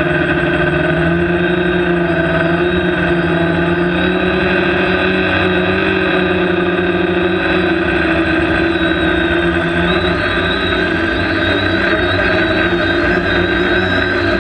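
A multirotor drone's electric motors and propellers whirring steadily, picked up by the onboard GoPro's microphone. Several held tones rise and fall slightly in pitch as the throttle changes.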